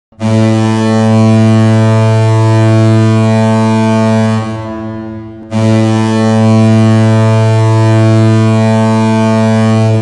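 Fairbanks Ice Dogs' hockey goal horn blowing two long, deep blasts of about four seconds each, each fading briefly before the next begins. The horn signals a home-team goal.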